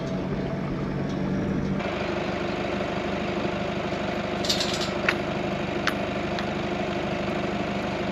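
Engine running steadily, its hum changing slightly about two seconds in, with a few faint clicks.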